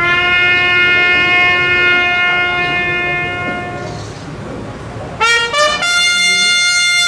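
Military bugle sounding a call: one long low note held about four seconds and fading, then after a short pause two quick rising notes lead into a higher long note.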